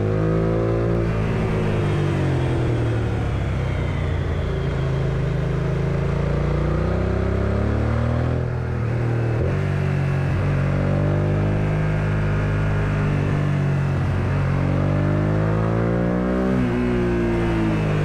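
1999 Suzuki SV650S's V-twin engine running on the move, its pitch rising and falling as the throttle is opened and eased through the bends. There is a brief dip about halfway through.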